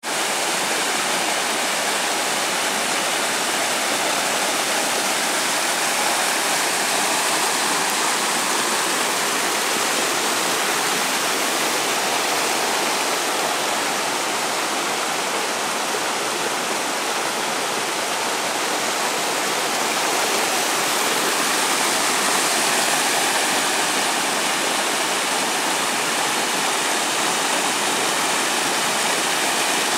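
Storm runoff rushing down a flooded forest hiking trail and tumbling over rocks in small cascades: a steady, unbroken rush of water.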